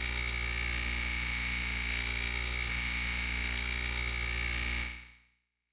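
Steady electrical buzz, a high whine over a low hum, like a neon sign, used as a sound effect for a glowing logo; it fades out about five seconds in.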